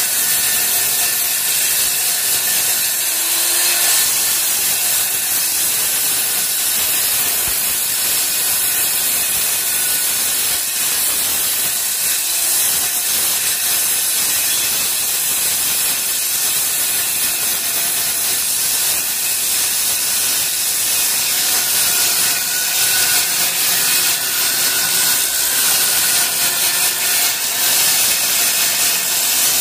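Handheld electric circular saw running steadily under load as it cuts lengthwise along a wooden window panel, a continuous high-pitched whine with a hiss of wood being cut.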